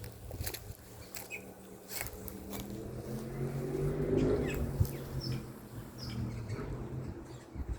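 A low engine hum swells to a peak about halfway through and fades away, with a few short bird chirps and a couple of light knocks.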